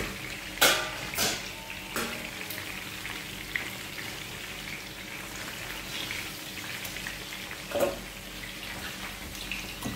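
Potato and carrot slices frying in oil in a pan, a steady sizzle. A few sharp clinks of tongs and metal dishes come in the first two seconds and again about eight seconds in.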